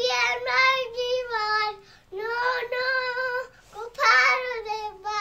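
Young child singing a rhyme in a high voice, in three short phrases with brief breaks between them.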